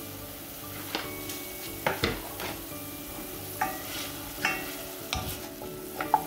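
Wooden spoon stirring and scraping diced shallots and root vegetables around a stainless steel skillet, with several short knocks of the spoon against the pan over a steady sizzle as the deglazing white wine reduces nearly dry.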